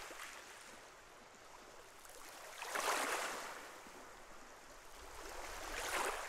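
Waves washing onto a rocky shore, swelling and ebbing about every three seconds.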